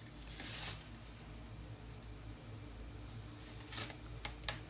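Handling noise from drafting on a paper pattern: a brief scratchy rustle of paper about half a second in, then three light clicks near the end, as of a pencil or ruler set down.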